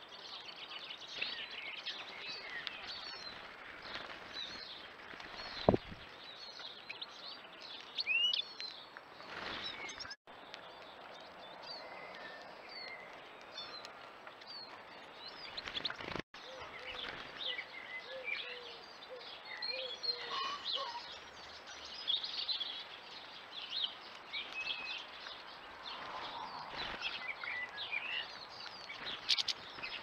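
Small songbirds chirping and twittering in many short calls over outdoor background noise, with a sharp click about six seconds in. The sound drops out briefly twice, near ten and sixteen seconds.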